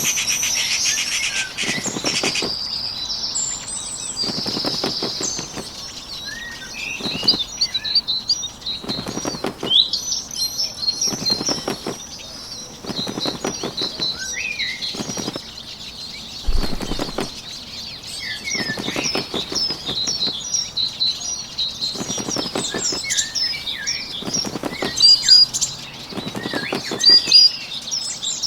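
Bird wing-flapping sound effect in short fluttering bouts every second or two, over a nature ambience of songbirds chirping.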